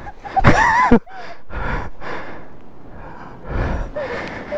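A person breathing hard after a fall or struggle. About half a second in there is a short pitched vocal cry that rises and falls, and heavy breaths follow.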